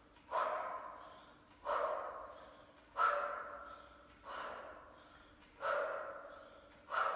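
A woman's sharp, forceful exhalations in time with two-handed kettlebell swings: six breaths about 1.3 seconds apart, each starting suddenly and trailing off.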